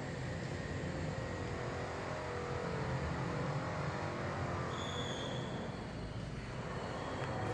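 Steady low rumbling background noise, with a brief high-pitched tone about five seconds in.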